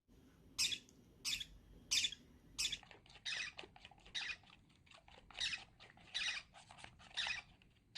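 Baby Forpus parrotlet chick giving short, scratchy begging calls, about nine of them, roughly one a second.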